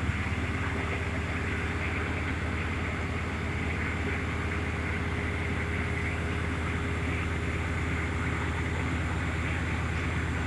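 Tow truck's V8 diesel engine running steadily at high idle with the PTO engaged, driving the wrecker's hydraulic pump as the boom is raised.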